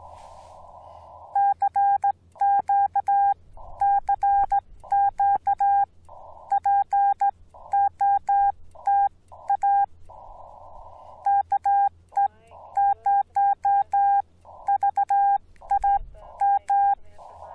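Morse code sidetone from a Yaesu FT-891 as CW is sent: a steady mid-pitched beep keyed in groups of dits and dahs, with pauses between letters and words. Before the keying starts and after it ends, the receiver's hiss through a narrow CW filter is heard; it drops out while the tone sounds.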